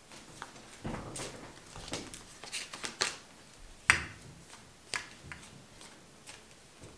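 A deck of fortune-telling cards being shuffled by hand: irregular soft rustles and clicks as the cards slide and tap together, with one sharper snap about four seconds in.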